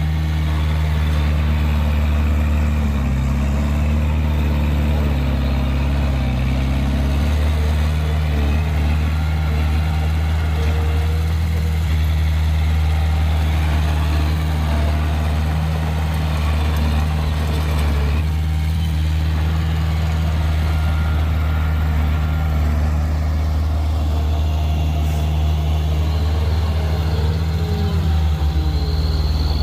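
An engine running steadily, a constant low drone with no change in speed.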